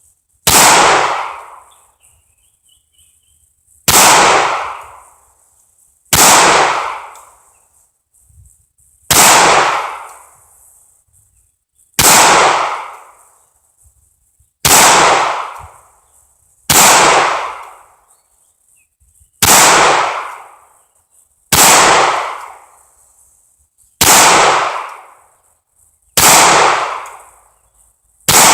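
Slow, deliberate pistol fire from a CZ P-09 in .40 S&W: about a dozen single shots, one every two to three seconds, each shot trailing off over a second or so.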